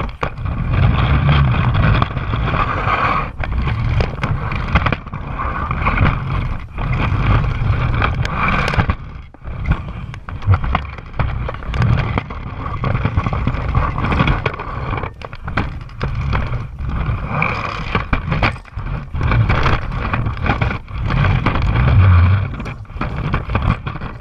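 Lego monster truck driving across a wooden floor, its motor running and wheels rolling, heard close up from on board. The sound is loud and dense, with many brief dips and gaps, one longer about ten seconds in.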